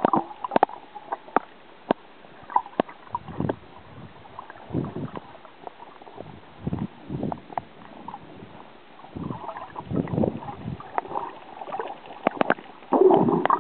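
Ocean water sloshing and splashing in irregular surges every second or two, with scattered sharp clicks.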